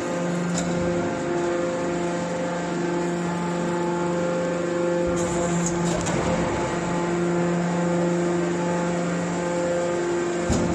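Hydraulic scrap metal baler running: a steady hum from its hydraulic power unit, with a few short knocks.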